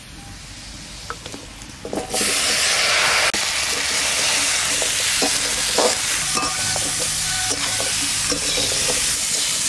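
Pieces of ash gourd are tipped into a hot wok of frying potatoes, and the oil bursts into a loud sizzle about two seconds in. A metal spatula then stirs and scrapes them against the wok, with short knocks, while the sizzling goes on steadily.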